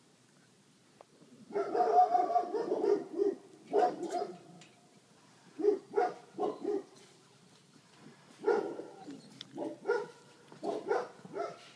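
Black Labrador puppies giving high, short yips and whines. They start about a second and a half in with a run of calls lasting nearly two seconds, then come back in several clusters of two to four short calls.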